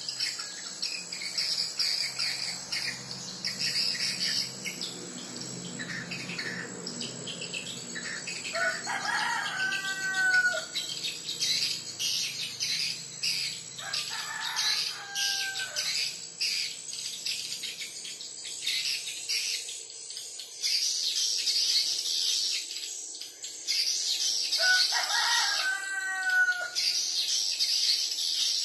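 Swiftlet call sound: dense, high-pitched chirping and twittering used as a lure to draw swiftlets into a swiftlet house. A rooster crows three times in the background.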